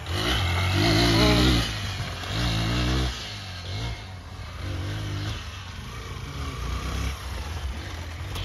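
Motorcycle engines revving under acceleration on a dirt trail, the engine note rising and falling several times.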